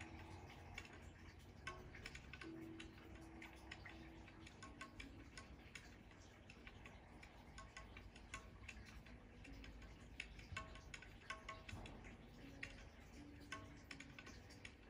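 Near silence: faint, irregular ticks and clicks over a low steady hum.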